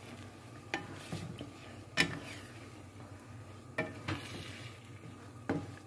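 Spatula scraping through beaten eggs in a hot frying pan as they scramble, about four separate scrapes over a faint sizzle.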